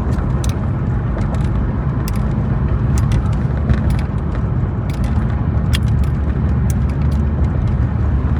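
Steady low road and engine rumble inside a moving car's cabin, with scattered light clicks and crackles over it.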